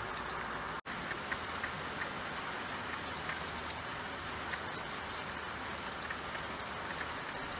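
Steady rain falling, an even hiss with scattered single drops tapping. The sound cuts out for an instant about a second in.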